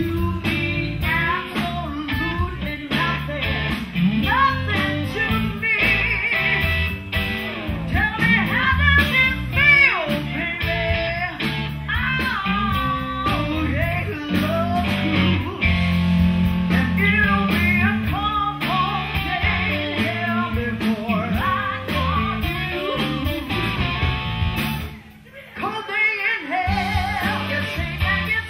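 Live blues-rock band playing, with electric guitar, bass guitar and drums, and a woman singing lead. The band stops briefly near the end, then comes back in.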